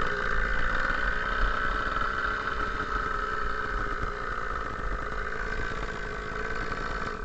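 Two-stroke chainsaw engine running steadily at one even pitch, like an idle, slowly fading, then cut off abruptly at the end.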